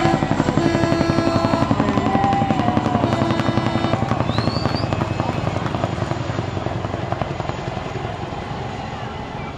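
Helicopter flying close by, its rotor beating rapidly and evenly, the sound fading steadily as it moves away.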